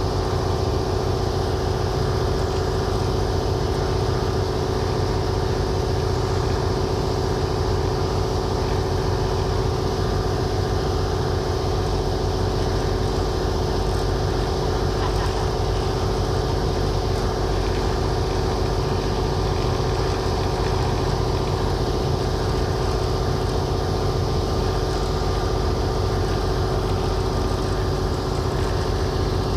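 Ferry boat's engine running steadily while underway across open water, a constant drone with an unchanging pitch over a low rumble.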